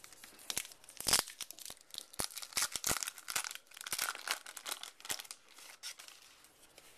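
A baseball card pack wrapper being torn open and crinkled by hand: a run of crackles and sharp ticks, busiest from about one to five seconds in.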